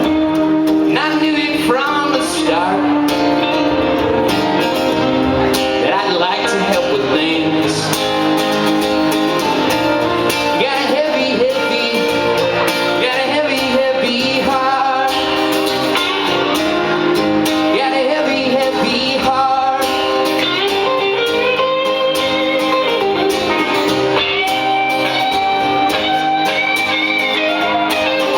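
Live band playing a loud, steady instrumental passage of a rock song, with guitar prominent.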